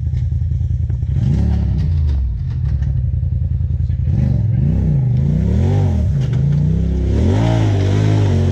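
Side-by-side UTV engine idling, then revving up and down in repeated short blips as the machine is worked over rocks. There is one rev about a second in, then a run of rises and falls about once a second from around four seconds in, highest near the end.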